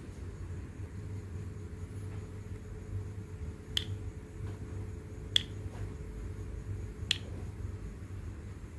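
Three sharp clicks about a second and a half apart: small PVC pump housing parts knocking together as they are handled, over a steady low hum.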